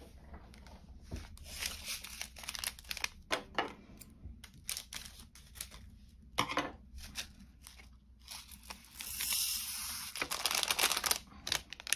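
Small plastic zip bags of resin diamond-painting drills crinkling and rustling as they are handled, in many quick crackles, with a short steady rustle about nine seconds in.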